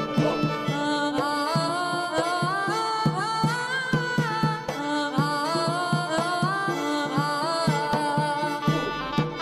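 Background music: a melody climbing and falling in quick stepwise runs over steady percussion.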